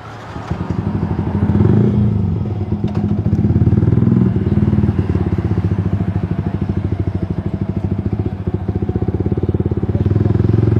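Motorcycle engine that comes in loud about half a second in and runs with a fast, even beat, rising and falling a little. The owner says this bike keeps sputtering ("brebet") and stalling at low revs.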